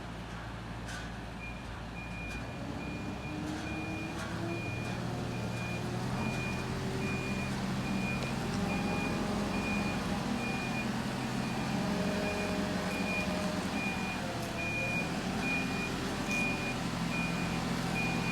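Reversing alarm on a working vehicle, beeping at an even pace from about a second and a half in, over its diesel engine running with shifting pitch.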